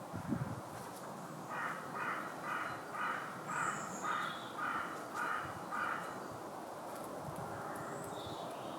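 A bird giving a series of about nine short, evenly spaced calls, roughly two a second, then stopping.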